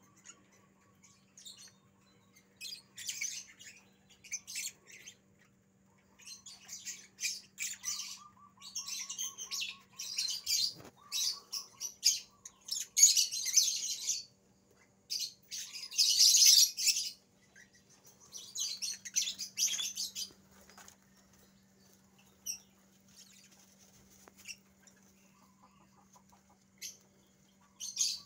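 Rabbits rustling and tearing at a pile of fresh leafy branches and banana leaves as they feed. The crackling rustle comes in repeated bursts of a second or two, loudest a little past the middle.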